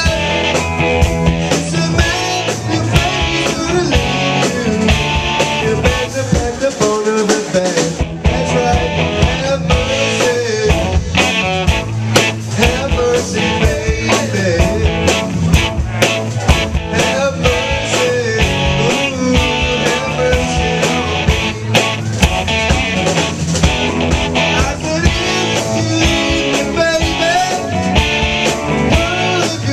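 Live band playing with a steady drum beat: electric guitars, drum kit and keyboard together.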